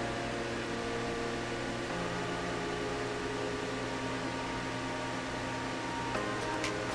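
Steady low electrical hum with a faint hiss, a background room tone, with a single sharp click near the end.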